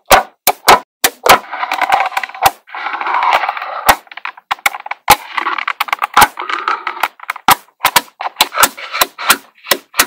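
Small magnetic balls snapping together with sharp, irregular clicks as sheets of them are pressed into place. Dense crackling stretches a little over a second in, and again in the middle, as many balls shift and settle against each other at once.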